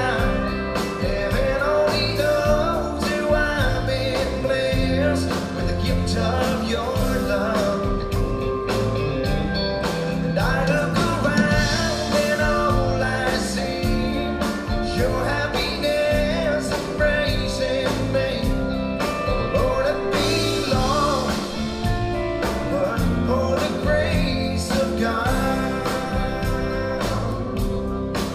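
Live country band playing a song on acoustic guitars with drums and keyboard, a man singing lead over it.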